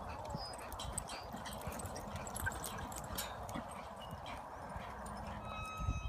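Horse's hooves thudding on soft arena dirt as it lopes, a run of short low hoofbeats.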